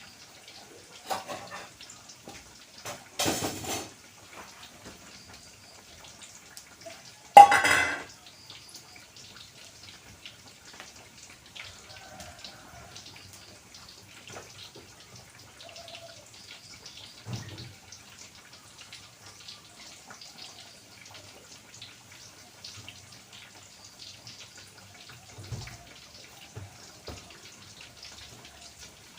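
Kitchen cookware clattering: a few separate knocks and clanks of pots, pans or utensils during cooking, the loudest about seven seconds in, over a faint steady crackle.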